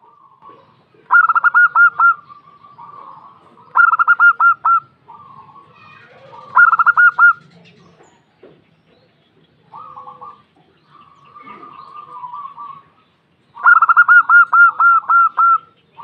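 Zebra doves (perkutut) calling: four loud bursts of rapid, evenly repeated coo notes, the last one longest, with softer cooing in between.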